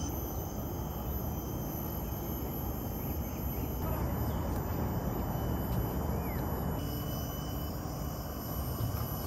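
Outdoor ambience of a steady high insect drone over a low rumble of wind or distant traffic, with a faint chirp or two. The background changes abruptly about four and seven seconds in.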